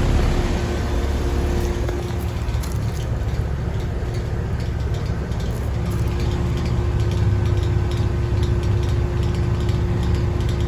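2002 Rheem Classic 5-ton heat pump running: a steady low hum from its Copeland scroll compressor under the rush of the outdoor fan, with a faint steady tone on top that drops out for a few seconds in the middle.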